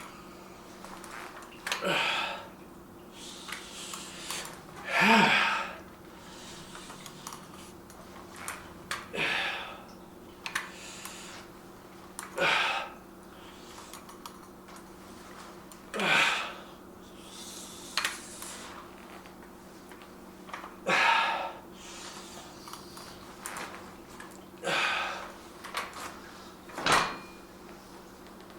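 A man's forceful, breathy exhales during dumbbell reps, one hard breath every two to four seconds, one of them briefly voiced, over a faint steady hum.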